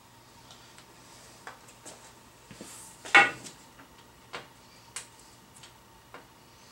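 Light clicks and taps of PVC pipe and fittings being handled and fitted together, with one sharp, much louder knock about three seconds in.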